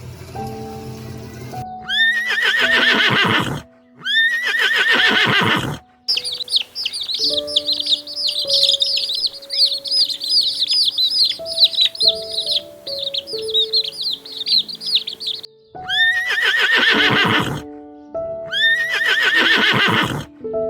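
Loud animal calls over background music: two quavering calls of about a second and a half each, then a long stretch of rapid high chirping, then two more of the loud calls near the end.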